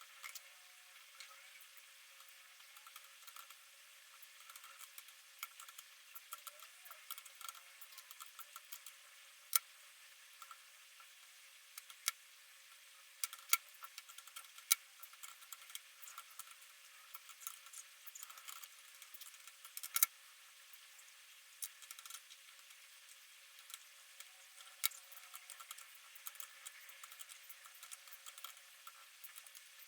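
Irregular small clicks and taps from the pins, springs and tools of a high-pin-count lock being taken apart on a work surface, a few sharper clicks standing out, over a faint steady hiss.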